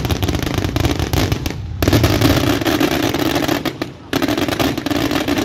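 Fireworks finale: a dense, rapid barrage of crackling and popping, with brief lulls about a second and a half in and about four seconds in.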